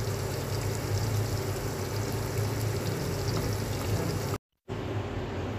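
Gram flour batter bubbling and simmering in a pan on a gas burner as a spatula stirs it, over a steady low hum. The sound drops out completely for a moment about four and a half seconds in.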